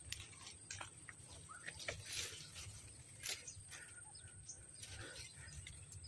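Footsteps and rustling through grass and undergrowth, in scattered irregular crackles as stems and leaves are pushed aside.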